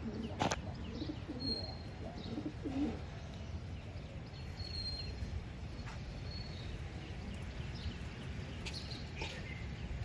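Racing pigeons cooing, mostly in the first three seconds, over a steady low rumble, with a sharp click about half a second in and faint high chirps.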